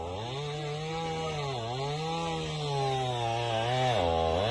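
Chainsaw cutting wood, its engine speed sagging as the chain bites and picking back up about three times.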